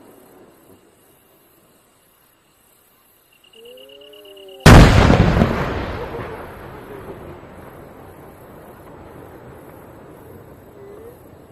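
A large aerial firework shell bursts with a single loud boom about four and a half seconds in. The boom rolls away in a long echoing rumble that fades over several seconds.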